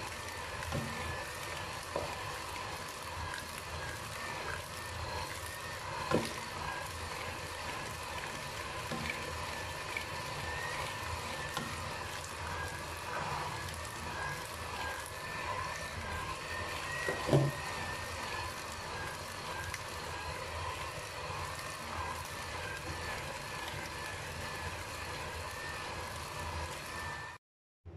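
Electric hand mixer running steadily with a slightly wavering whine, its beaters churning thick cake batter in a bowl. Three short knocks stand out, and the sound cuts off suddenly near the end.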